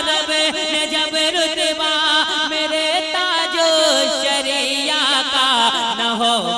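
A male naat singer's voice carrying a long, wavering melodic line with no clear words.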